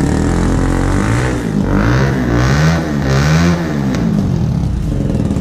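Hurricane 250 motorcycle's 250 cc liquid-cooled, twin-cam, four-valve engine blipped through its exhaust while standing still: it idles, revs up and down in several quick throttle blips from about a second in, and settles back to idle near the end.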